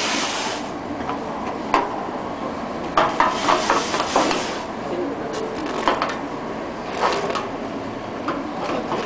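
Terne-coated sheet-metal roof panel being cut along its marked line, with sharp metallic clicks about every second or so over a steady hiss.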